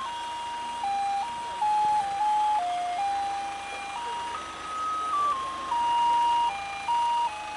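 Electronic warning melody from the crane truck while it operates: a simple tune of single beeping tones stepping up and down, starting over about four seconds in.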